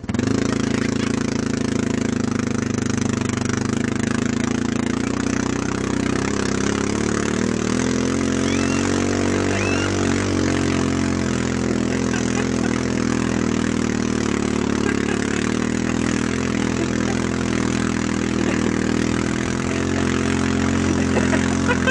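Snowmobile engine running steadily under way close to the microphone, towing a sled at a fairly even speed.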